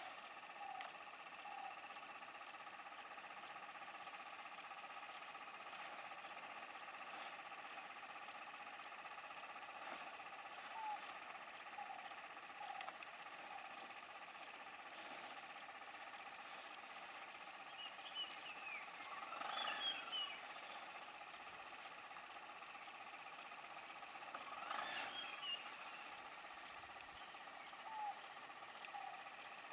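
Insects chirping in a steady, high, shrill pulse that repeats about two to three times a second. Faint short animal calls sound underneath, and two brief rising calls come about two-thirds of the way through.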